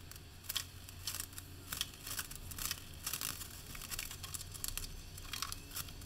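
Faint, irregular rustling and crinkling handling noise, with a few short scratchy sounds a second.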